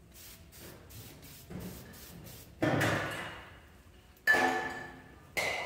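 Faint rapid clicking, then three sharp metal knocks, each ringing and dying away; the second, a little past the middle, is the loudest and has a clear ringing tone. The knocks come from handling parts and tools in a car's stripped engine bay.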